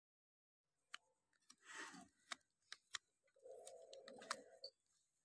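Silent at first, then a handful of sharp clicks and a short scrape as a hand-held trimming blade cuts into a cow's hoof, with a muffled sound lasting about a second in the second half.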